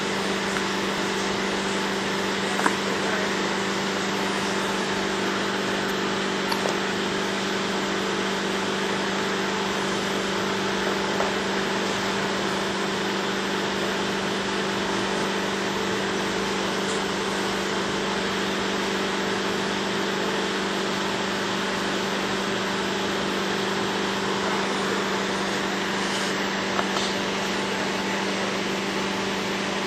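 Steady electrical-sounding hum and hiss, with a few brief faint clicks scattered through it.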